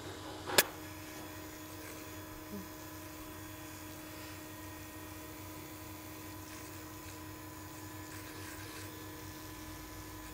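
Electric hand mixer running at a steady speed, its beaters whisking creamed butter, sugar and egg batter. A single sharp click stands out about half a second in.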